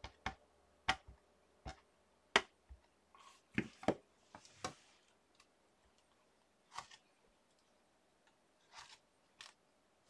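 Scattered sharp clicks and taps of rubber stamps being inked and pressed on a hinged stamping platform, about a dozen in all, with a brief soft rustle about four and a half seconds in.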